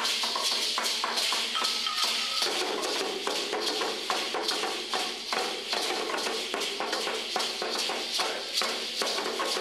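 Hand-held rattles shaken in a quick, rhythmic beat of sharp, hissy strokes, keeping time for dancers.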